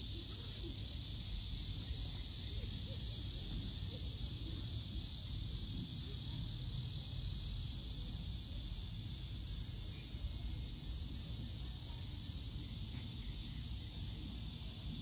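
Steady high-pitched hiss with a low rumble beneath it, even throughout, with no distinct events.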